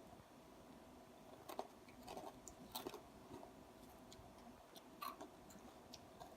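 Faint chewing of crunchy dry cereal: a few soft, scattered crunches, the clearest about a second and a half in, around three seconds in and about five seconds in, over quiet room tone.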